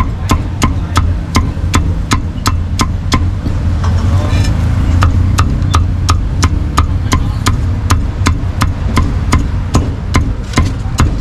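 Cleaver chopping roasted meat on a wooden chopping block in a quick, even rhythm of about three or four chops a second, with a short break about four seconds in. A steady low rumble runs underneath.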